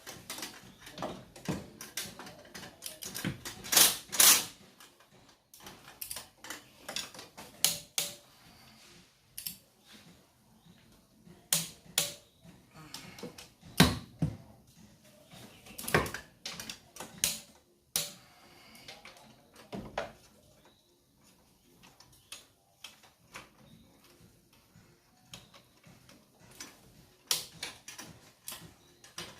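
Hand tools and metal engine parts clicking and clanking irregularly during engine assembly, with the loudest knocks about four seconds in and again around fourteen to sixteen seconds.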